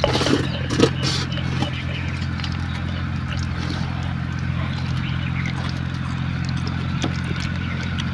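A steady low mechanical hum, like a motor or engine running, with a few short sharp knocks in the first second and a half.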